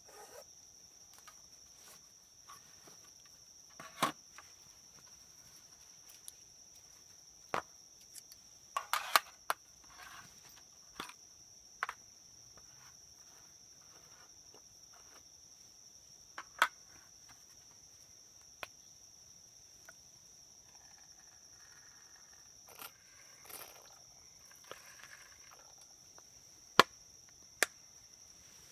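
A chorus of crickets or similar insects keeps up a steady, high-pitched continuous tone. Scattered sharp clicks and knocks from camp gear being handled come through it, a few of them louder than the insects.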